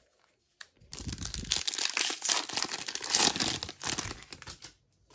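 Shiny plastic wrapper of a Panini Prizm trading-card pack being torn open and crinkled by hand. It starts about a second in as a dense crackle and stops shortly before the end.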